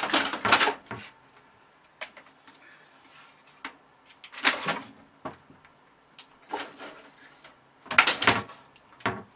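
A series of irregular short knocks and rustling noises, several of them in quick clusters, with quiet gaps between.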